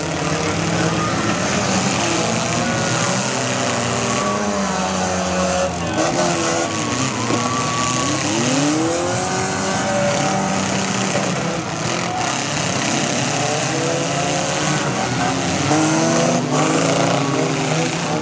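Several small demolition-derby cars' engines revving up and falling back over one another, with now and then a bang as cars hit each other.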